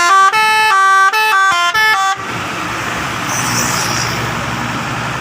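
Telolet multi-trumpet air horn on a truck playing a quick tune of stepping notes for about two seconds, then stopping, leaving a steady rumble with a short hiss.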